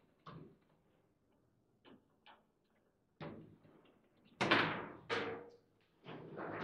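Table football ball and rods knocking: separate sharp knocks of the ball against the plastic figures and the table walls, with two loud bangs about four and a half and five seconds in.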